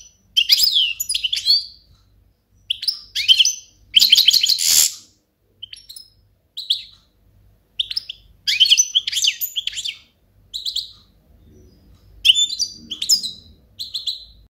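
European goldfinch singing: a string of quick, high twittering phrases, each under a second or so long, with short pauses between them.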